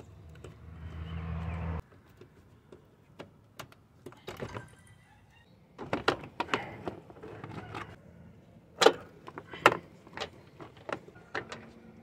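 Scattered clicks, taps and scrapes as the front ABS sensor cable is pulled free of its plastic clips and grommets on a wheel-well liner. A steady low hum is heard at the start and cuts off suddenly about two seconds in.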